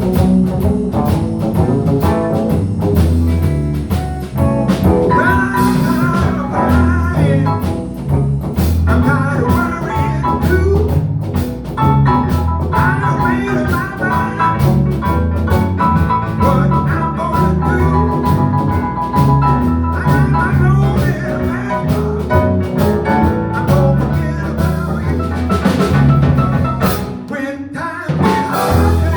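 Live band playing a slow blues: drum kit, bass and electric guitar, with some singing.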